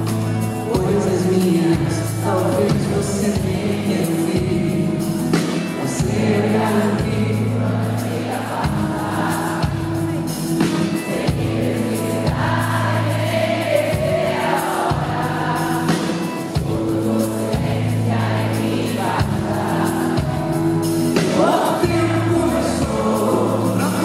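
Live concert music: a song with nylon-string guitar and band accompaniment and singing throughout, the voices sounding like many people singing along.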